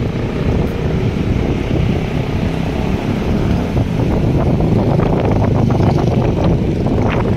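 Loud wind noise and road rumble at the open side window of a moving car. The rumble is dense and low, and wind flutters on the microphone.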